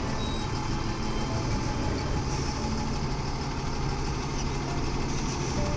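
Diesel engine of a Tata truck pulling a car-carrier trailer, running steadily at low revs while the rig manoeuvres slowly, a constant low rumble.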